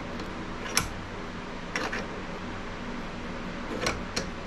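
Steel sliding handle of a Craftsman bench vise clicking a few times as the vise is cranked tight, over a steady background hum.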